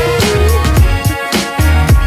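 Background music with a steady beat: deep kick-drum hits that drop in pitch, under held synth notes.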